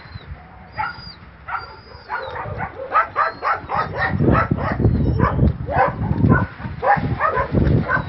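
Many dogs barking, a quick run of overlapping barks that grows louder and denser about three seconds in.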